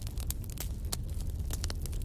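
Wood fire in a fireplace crackling, with frequent sharp snaps and pops over a steady low rumble of the flames.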